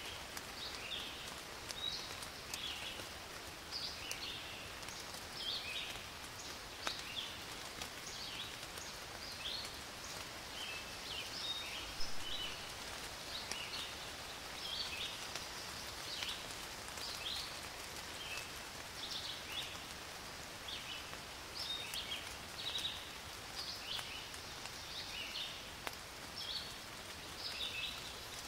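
Small birds chirping continuously, many short high chirps, over a steady background hiss.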